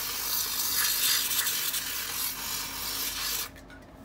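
A blast of compressed air hissing for about three and a half seconds, blowing dust out of the dehumidifier's fan, then cutting off suddenly.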